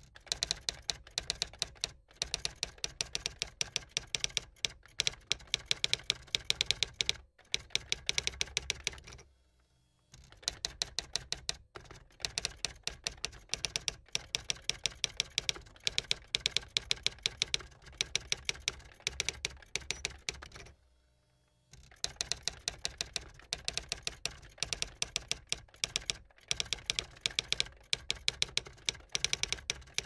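Typewriter being typed on: fast runs of sharp key strikes, breaking off briefly about a third of the way in and again about two-thirds of the way in.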